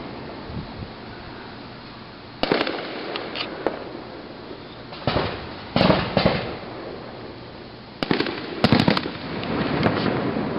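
Aerial fireworks bursting: about six sharp bangs a few seconds apart, each trailing off in an echoing tail, with a quick cluster of bangs near the end.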